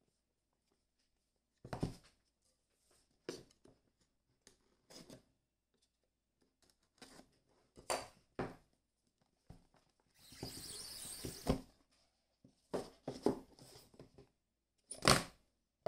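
Hands handling a cardboard smartphone box on a wooden table: scattered taps, knocks and scrapes. About ten seconds in there is a longer sliding rasp as the snug lid is pulled off the box, and near the end a sharper knock.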